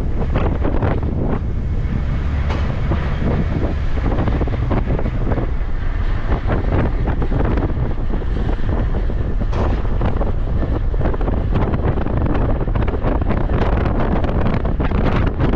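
Wind buffeting the microphone while riding a motorcycle down the street, a steady rush with low rumble underneath.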